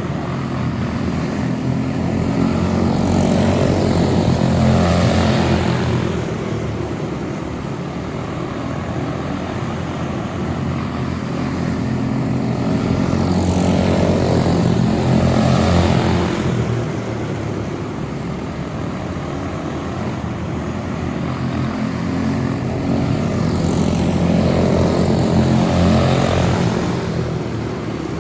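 Propeller engine of a radio-controlled model airplane droning as it flies circuits, growing louder and fading away three times as it passes about every ten seconds.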